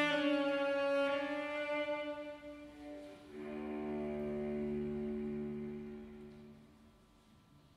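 Cello, with piano accompaniment, closing a slow piece: a long held note fades, then a final low chord sounds about three seconds in, is held, and dies away to near quiet near the end.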